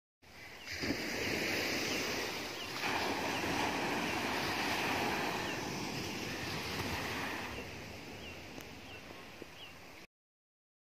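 Sea surf washing on a beach, a steady rushing noise with some wind, and a few faint short chirps over it. It changes character twice, then cuts off suddenly about ten seconds in.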